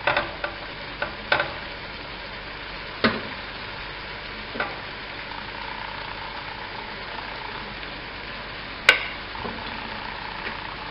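Beef mince and freshly added sliced onions frying in oil in a non-stick wok, a steady sizzle. A wooden spatula knocks against the pan several times in the first few seconds, with one sharper knock near the end.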